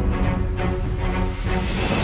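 Background music with held, sustained tones.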